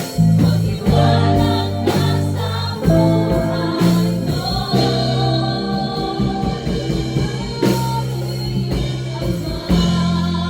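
Gospel praise and worship music: singing over a band with guitar and drum kit, with a steady beat.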